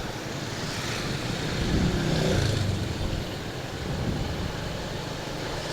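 Road traffic: vehicle engines running past in a steady background of street noise, with one passing a little louder about two seconds in.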